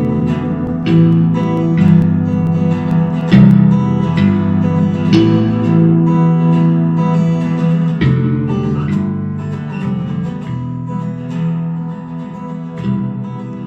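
Outro music: strummed acoustic guitar chords with a steady rhythm, fading near the end.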